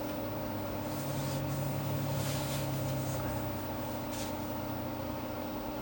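Steady electrical hum and fan noise of a running vintage desktop computer, with a low drone from about one second in that fades out a couple of seconds later.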